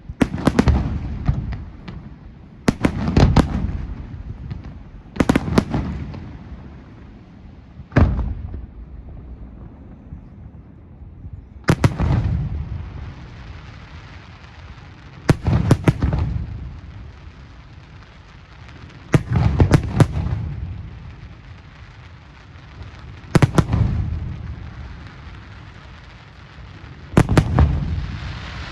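Fireworks display: groups of loud, sharp bangs about every three to four seconds, each followed by a low rumbling echo that dies away.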